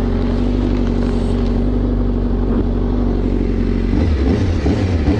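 Honda CBR1000RR-R's inline four-cylinder engine idling steadily while it warms up; about four seconds in the sound turns rougher and uneven.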